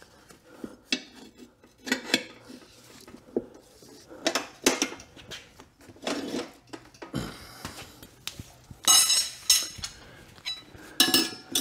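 Metal tire irons clinking and scraping against a dirt bike's wheel rim as a rear tire's bead is levered on: irregular knocks and clatters, with two short scraping rattles near the end.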